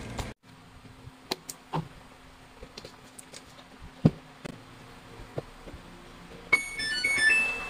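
Scattered light clicks and knocks, then near the end a quick run of short electronic beeps at several different pitches, like a device's chime.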